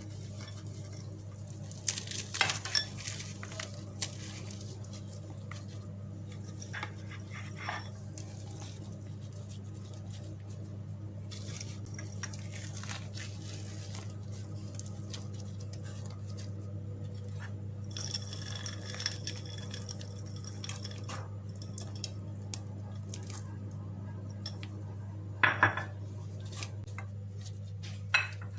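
Kitchen utensils and dishes clinking and clattering now and then, with a few sharper knocks, over a steady low hum.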